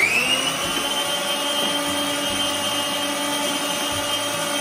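Preethi Zodiac Cosmo mixer grinder running at full speed, crushing beef pieces in its jar. The motor whine climbs to speed in the first moment, then holds steady.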